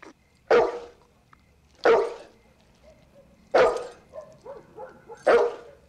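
Dogue de Bordeaux (French mastiff) barking at night, four loud single barks evenly spaced a little under two seconds apart.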